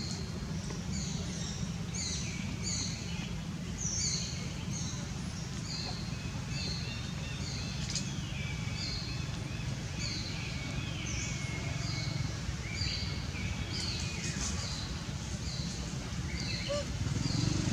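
Small birds calling over and over in short, high, falling notes, about one to two a second, over a steady low rumble.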